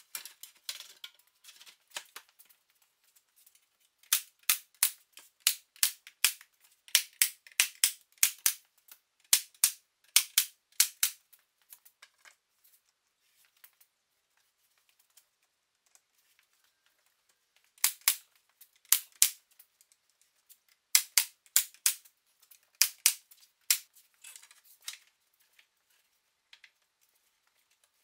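18-gauge brad nailer firing into trim in several quick runs of sharp snaps, about two a second, with pauses between the runs.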